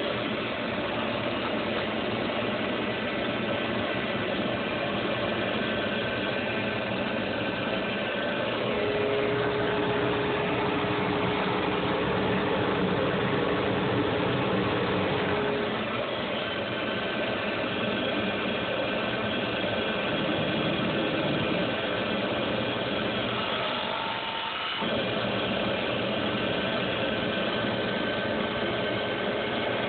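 Small CNC lathe running steadily while turning a wooden duck call barrel. Its motor noise holds even throughout, and a higher whine comes and goes as the machine works, with a brief dip about 25 seconds in.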